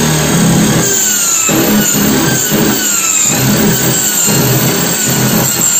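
Corded electric drill running at speed while boring a 25 mm hole through a wooden door. The motor's whine sags and recovers as the bit bites into the wood.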